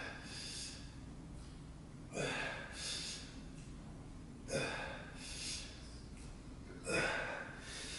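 A man's hard, forceful breaths, about every two and a half seconds: each a sharp exhale followed by a softer breath, in time with his reps of seated bent-over dumbbell raises.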